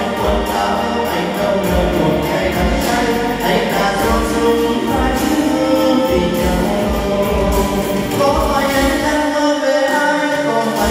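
Vietnamese song played through a PA system: a karaoke backing track with a steady bass beat and a man singing into a microphone over it.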